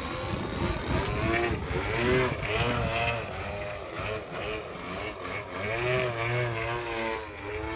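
Gas-powered 3D aerobatic RC airplane's two-stroke engine and propeller, its pitch repeatedly rising and falling as the throttle is worked through low, slow manoeuvres.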